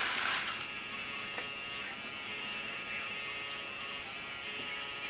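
Small geared DC motor switching on at the start and running with a steady whine as it turns the solar tracker's base. It runs while its photoresistor sits in direct sunlight, until the turning device brings the sensor back into shadow.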